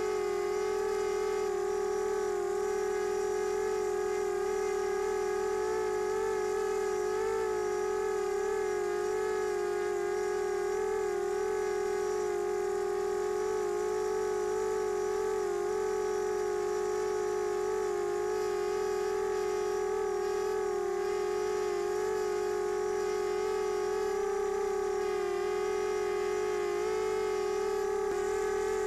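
Brushless motors and propellers of a 250-size quadcopter hovering in GPS hold, heard through its onboard camera: a steady whine whose pitch wavers slightly as the motors hold position.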